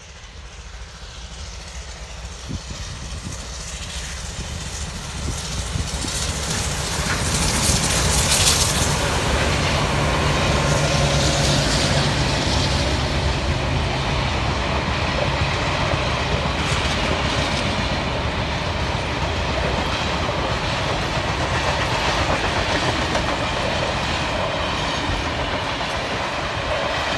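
A passenger train hauled by steam locomotive 3801, an NSW C38-class Pacific, approaches and passes. The sound builds to its loudest about eight seconds in as the locomotive goes by, then gives way to the steady rumble and clatter of the carriages' wheels on the track.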